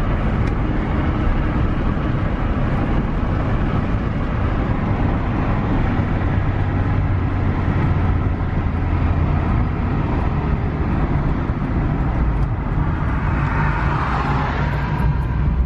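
Steady road noise of a car driving along: a low engine hum with tyre hiss.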